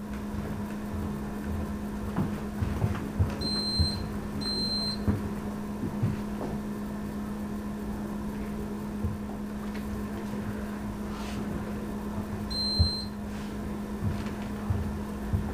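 Alarm of a UHF RFID EAS security gate giving short high beeps, twice close together about three and a half seconds in and once more about twelve and a half seconds in: the gate signalling that a tagged item has passed through. Under it a steady low hum and scattered light knocks.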